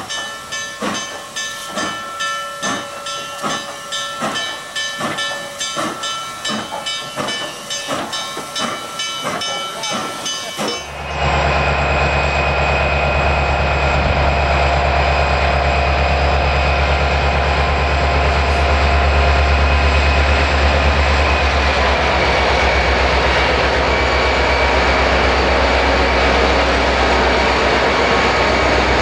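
Steam locomotive chuffing in an even rhythm, about two beats a second, with hissing steam. About eleven seconds in it cuts abruptly to the louder, steady low drone of diesel locomotives running past with a freight train.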